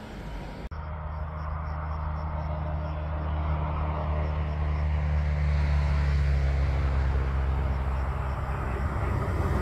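Train approaching: a steady low hum made of several tones over rumbling noise, growing louder throughout. The sound changes abruptly about a second in.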